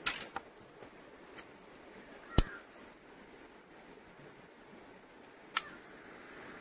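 Dry twigs snapping as they are broken by hand: several sharp cracks, the loudest about two and a half seconds in.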